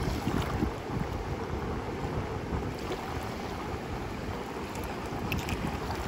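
Wind buffeting the microphone over the steady wash of surf on the shore.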